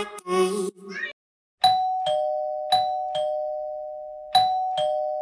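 A doorbell-style two-note ding-dong chime, a higher note then a lower one, struck three times at even spacing, each note ringing on and fading. Before it, the end of a dance-music track stops about a second in.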